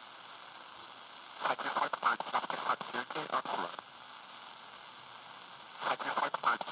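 Shortwave receiver tuned to 14.263 MHz: a steady static hiss, broken twice by a thin, band-limited voice transmission coming through the speaker, about a second and a half in and again near the end.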